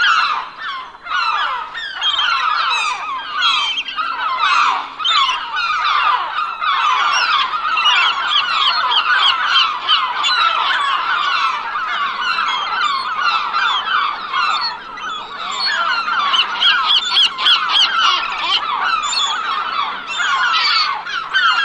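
A flock of seagulls calling all at once: many overlapping cries in a dense, unbroken chorus.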